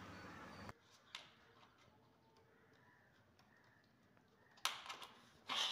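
Mostly near silence, with a faint click about a second in and two short rustling scrapes near the end as a ceiling fan's dome cover is handled on its downrod.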